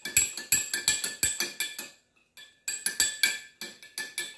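Metal spoon clinking rapidly against the inside of a drinking glass as lemonade is stirred to dissolve the sugar and salt, with a short pause about two seconds in.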